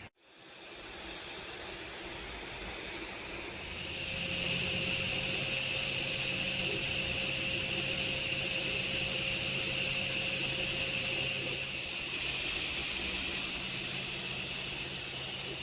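A 3D printer running: steady fan hiss with a low motor hum and a faint steady tone, getting louder about four seconds in.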